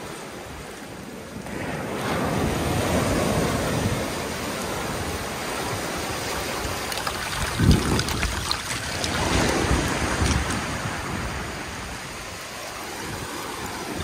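Small waves washing in over a bed of seashells at the water's edge, the shells clicking and rattling as the water surges up and drains back. The water swells about two seconds in and again near the end, with the shell clicking thickest in between.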